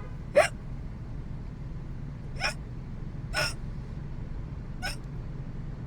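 A woman hiccuping four times, short sharp hiccups one to two seconds apart, the first the loudest. It is part of a long bout of hiccups that have not stopped, heard over the steady low hum of a car cabin.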